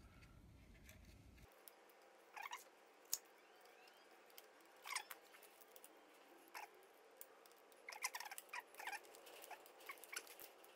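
Faint clicks, taps and rustles of hands working wires and a small bracket behind a motorcycle battery, with one sharper click about three seconds in.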